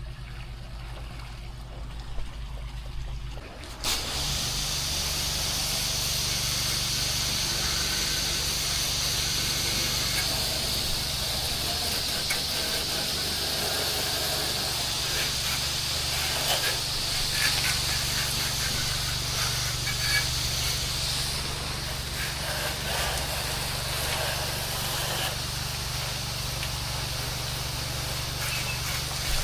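Engine-driven pressure washer running, with a steady hiss of water spraying from the wand that starts about four seconds in.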